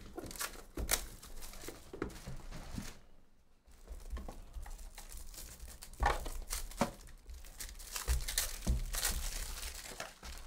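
A trading-card hobby box being opened by hand, with cardboard knocks and rustling. From about six seconds in comes louder crinkling and tearing of packaging as the cards are unwrapped.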